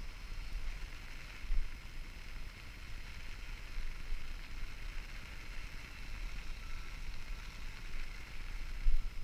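Muffled wind and handling rumble heard through a waterproof camera housing, with a light hiss of water and a couple of dull knocks.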